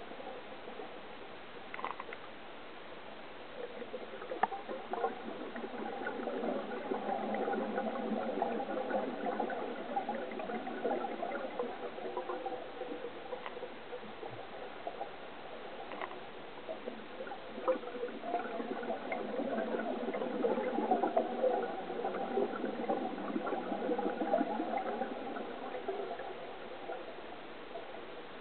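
A scuba diver's exhaled bubbles from the regulator, heard underwater: two long bubbling swells several seconds each, with quieter stretches of faint water noise before, between and after.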